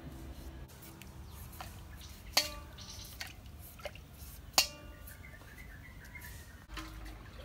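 Green papaya being cut with a knife over a stainless steel bowl of water, with light dripping and splashing as pieces fall in, and two sharp ringing taps about two seconds apart.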